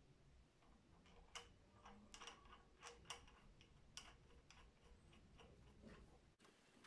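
Faint, irregular metallic clicks and taps as crown wheel bolts are turned in by hand and seated against the ring gear on a differential carrier.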